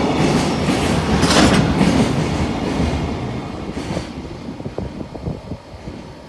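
Freight train running through a station, its wagons rumbling with wheel clatter over the rail joints; after about two and a half seconds the sound fades steadily as the train passes.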